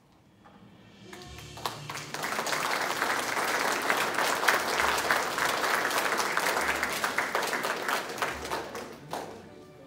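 Audience applauding: many hands clapping together, building up over the first couple of seconds and dying away near the end.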